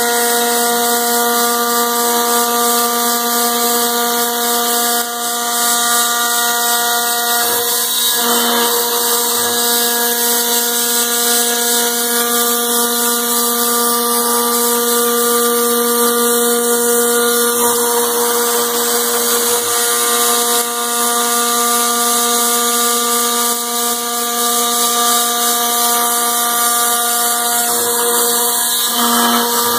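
CAMaster CR-304 CNC router spindle cutting aluminum: a continuous machining whine that holds a steady pitch, with a hiss of cutting noise over it.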